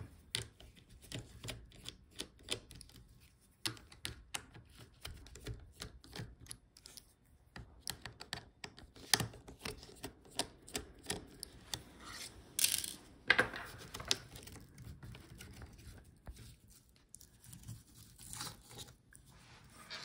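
Small screwdriver and fingers working a laptop's rear I/O board free: scattered light clicks and ticks of screws, plastic and metal parts being handled. A couple of louder, brief scrapes come about two-thirds of the way through.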